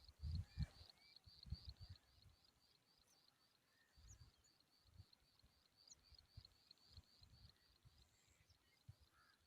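Faint outdoor ambience: a high chirp repeated steadily about four times a second, with low rumbles in the first two seconds.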